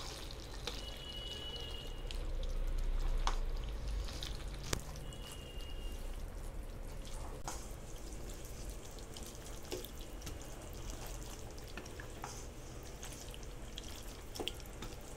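Wooden spatula stirring wet minced meat with chopped tomatoes and yogurt in a kadhai: wet squelching and sloshing, with scattered sharp taps of the spatula against the pan.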